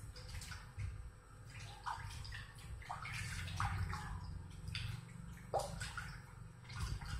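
Hands splashing and rubbing in water in a stainless steel pot, in irregular swishes, as a dried hand pack is washed off.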